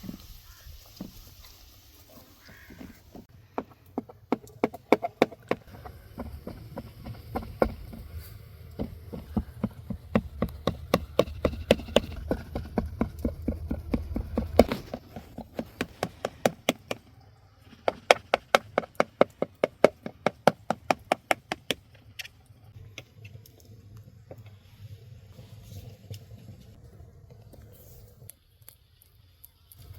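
A knife chopping on a cutting board in quick, even strokes, about four a second, in two long runs with a short pause between.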